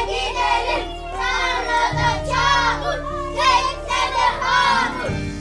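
Children's voices singing and calling out over background music, whose held low notes change about two seconds in and again near the end.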